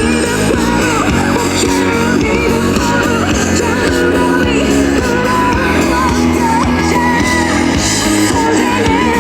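Rock band performing live: a sung vocal line over guitars and a full, steady band backing.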